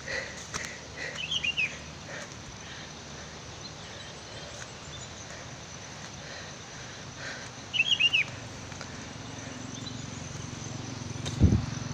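A small bird calling twice, each call a quick run of three or four short falling chirps, about a second in and again around eight seconds. A low thump near the end.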